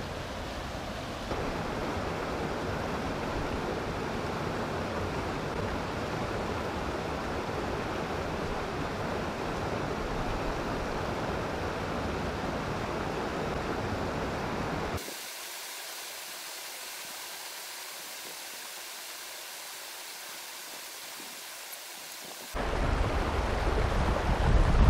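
Rushing water of a small mountain stream running over granite cascades, a steady watery noise. About fifteen seconds in it turns thinner and hissier, and near the end it becomes louder with a heavy low rumble.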